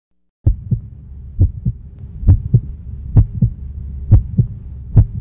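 Heartbeat sound effect: paired lub-dub thumps about once a second, six beats in all, over a low steady hum. It starts after a brief silence, and the beats grow slightly louder.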